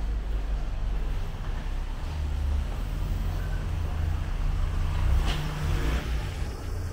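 Road traffic: a motor vehicle's engine running close by, a low rumble that grows louder about two and a half seconds in, with a brief sharper sound a little after five seconds.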